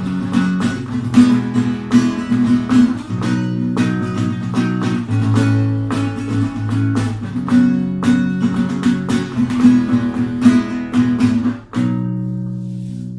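Guitar strumming chords, ending on a final chord about twelve seconds in that rings out and fades.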